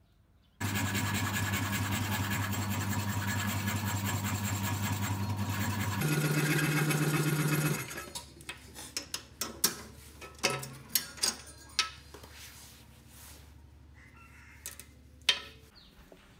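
Corded electric drill running steadily with a wooden wheel spinning in its chuck. About six seconds in the machine sound shifts to a higher hum, then stops a couple of seconds later, followed by a scattering of sharp wooden taps and clicks.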